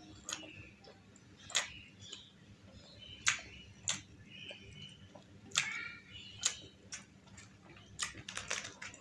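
Close-up mouth sounds of chewing with lips closed: sharp wet clicks and smacks, irregular and about a second apart. Near the end a quick run of crackles as a fried puri is picked up.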